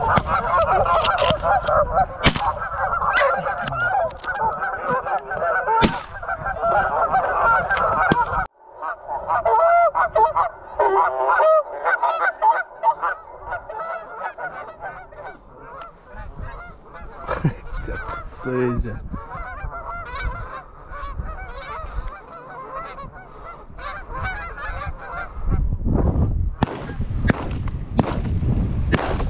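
A large flock of Canada geese honking in flight, many calls overlapping, loud at first and thinning out past the halfway point.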